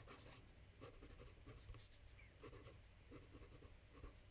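Hongdian N11 fountain pen's fine steel nib writing on lined notebook paper: faint, short scratches of pen strokes at an irregular pace.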